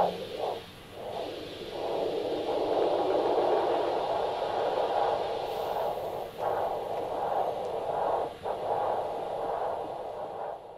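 Handheld Doppler ultrasound probe over the radial artery of a patient with a continuous-flow ventricular assist device, giving a steady whooshing flow sound with slow swells and a few brief dropouts rather than a distinct heartbeat. The whoosh builds up during the first two seconds as the cuff pressure is released, the point taken as the mean arterial pressure. It opens with a brief loud crackle.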